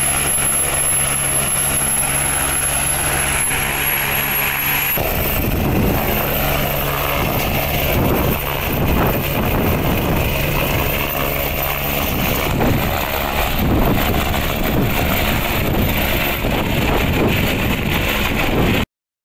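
Air ambulance helicopter running on the ground, a steady engine drone with a high whine. About five seconds in the sound changes abruptly to a noisier rotor chop as the helicopter lifts off and climbs away. The sound cuts off suddenly near the end.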